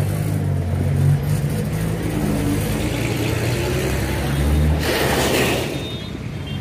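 Road traffic: vehicle engines running close by in a steady low rumble, with a louder rush of noise for about a second near five seconds in.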